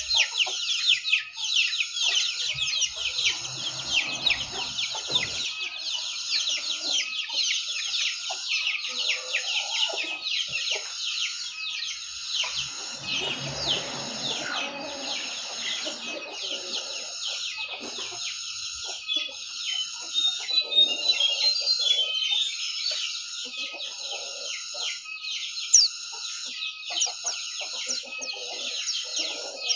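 Pleci dakun (white-eye) singing a long, fast, continuous twittering song of rapid high chirps without a break, the kind of song used as a lure to set silent pleci singing.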